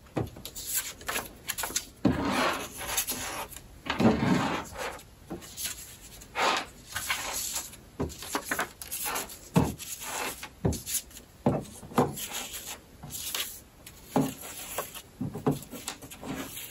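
Folded construction-paper pennants rustling and scraping as hands slide them along a yarn string and shift them on a tabletop, in irregular short brushes and light knocks.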